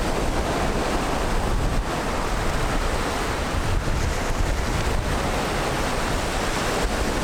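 Ocean surf breaking and washing in over a rocky shore, a steady rush of water with wind noise on the microphone.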